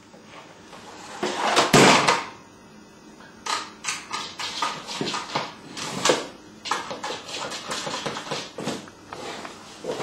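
Puppy tussling with a switched-off vacuum cleaner's floor nozzle: irregular knocks and scrapes, loudest in a cluster about two seconds in.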